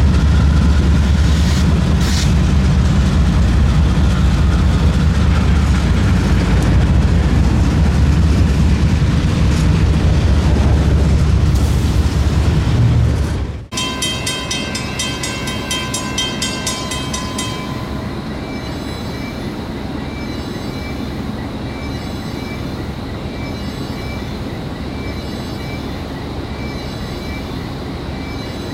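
Freight train of autorack cars rolling past close by: a heavy, steady rumble with wheel and rail noise. About halfway through it cuts off abruptly, and a much quieter background follows, with a rapidly repeating high ringing for a few seconds and then a softer repeating high chirping.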